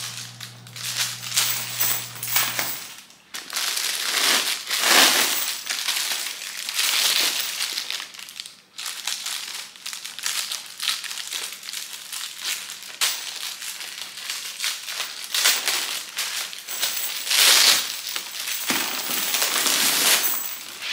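Clear plastic wrapping crinkling and rustling as it is cut and pulled off a handbag's chain strap, with brief pauses about three and nine seconds in.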